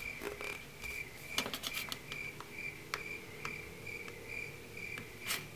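Fingernails picking and scratching at the corner of a sheet of adhesive magnetic paper, trying to lift its backing, with light scattered clicks and paper rustles; the backing will not come off. A faint high chirp repeats about three times a second throughout.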